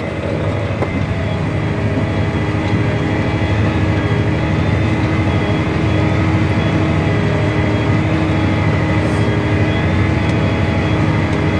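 Farm tractor's diesel engine running steadily under load while pulling a seven-bottom Wilrich on-land plow through the soil, with a steady high whine over the engine drone.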